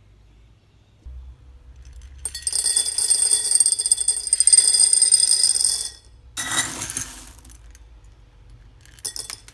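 Whole dried chickpeas poured into a bowl: a dense rattling stream of peas hitting the bowl for about three and a half seconds, with a steady ringing tone from the bowl. A shorter pour follows, then a few single peas drop near the end.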